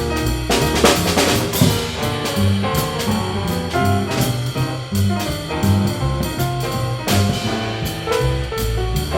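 Live jazz combo playing: a double bass line and a drum kit with cymbals under a melody line, with a cymbal crash about a second in.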